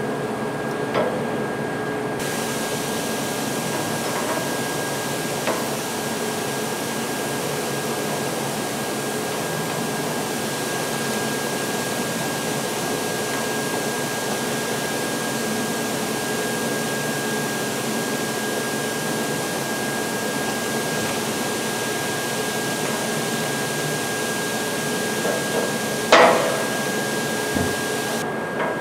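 Steady machine hum with a constant high whine. Over it come light clinks of steel transmission gears being set on a press bed, and one loud metal clank about 26 seconds in.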